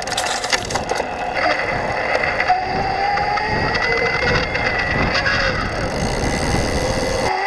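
Yamaha PW-Series ST mid-drive motor on a 2022 Wabash RT e-bike running at a low assist level, a whine with scratchy chirping and chattering over it and some rattling clicks in the first second. The owner takes this chatter for a sign that the drive unit does not sound right under gentle riding.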